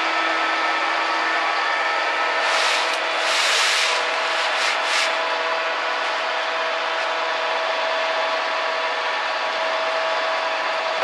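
Concrete mixer truck running steadily with a constant mechanical hum, and a louder rush of gritty hiss for a couple of seconds from about two and a half seconds in.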